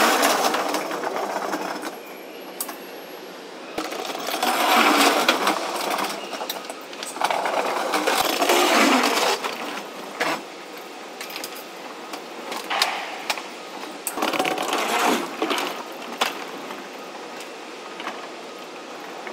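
Manual pallet jack being pushed over the dock plate and into a truck trailer: its wheels rattle in several stretches of a couple of seconds each, with scattered clanks and knocks in between.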